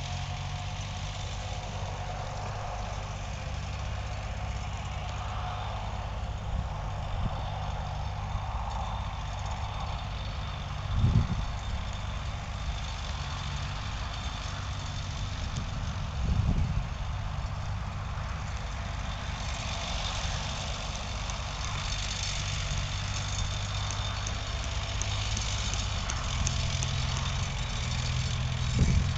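Old farm tractor engine running steadily as the tractor pulls a levelling implement across a dirt track, with three brief low thumps spread through it.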